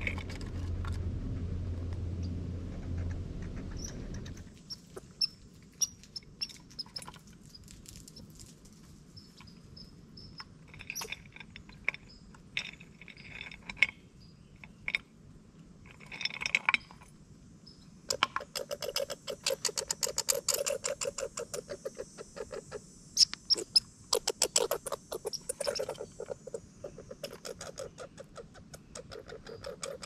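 A squirrel gnawing and cracking a nut shell: rapid dry clicks and scrapes, densest in the second half. A low, steady engine-like hum at the start stops about four seconds in.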